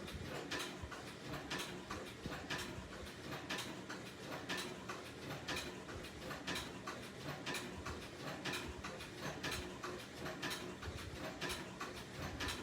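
Leather sewing machine stitching slowly and steadily, each stitch a click at about two a second, over the steady hum of its motor.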